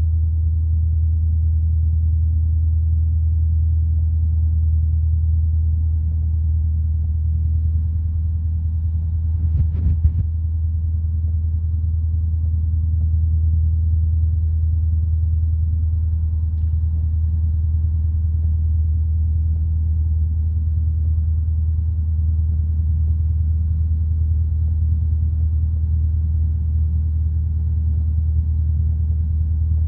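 Single-engine light aircraft's piston engine idling, a steady low drone heard from the cockpit, with one brief crackle about ten seconds in.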